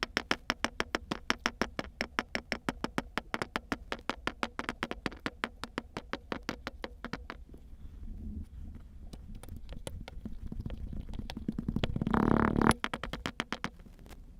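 Kinetic sand being squished and crunched: a fast, even run of crisp clicks, about five a second, that thins into softer, irregular crackling after about seven seconds, with one louder crunching burst near the end.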